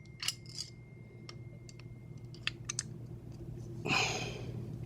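Scattered light metallic clicks and ticks of a padlock and a 7/64 Allen wrench being handled, with a brief louder rustling noise about four seconds in.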